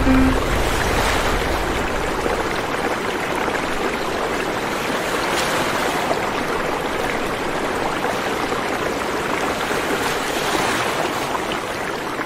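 Steady rushing noise like fast-flowing water, even and without pitch throughout.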